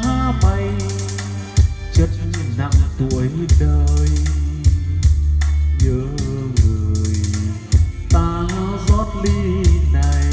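A song with singing, drum kit and heavy bass played loud through a pair of homemade floor-standing speakers with a 25 cm woofer and tweeters, driven by a used Korean Kumyoung KY-606A karaoke amplifier.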